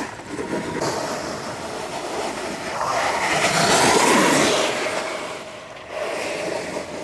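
Steady rough rushing noise, like wind over a microphone with a rolling rumble under it. It swells to its loudest about four seconds in and eases off near six seconds.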